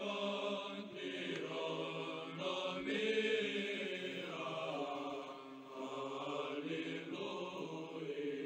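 Background church chant: voices singing slow, held notes over a steady low drone.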